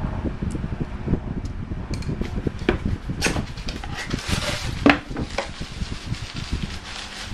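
Hands handling small metal parts and tools of a motorcycle fuel pump assembly: scattered clicks and clinks, the loudest just before the five-second mark, with rustling in the middle, over a steady fan-like hum.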